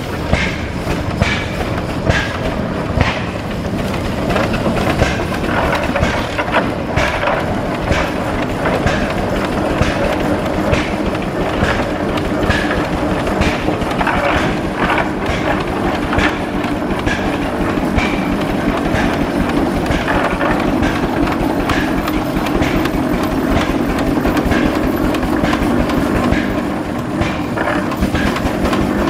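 1906 Frick steam traction engine running as it drives along, with a steady run of knocks and clanks over a continuous mechanical noise.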